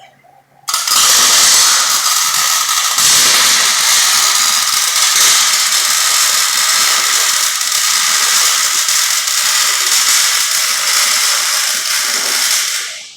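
Wire-feed welding arc running one continuous bead: a loud, steady crackling hiss that starts abruptly about a second in and dies away just before the end.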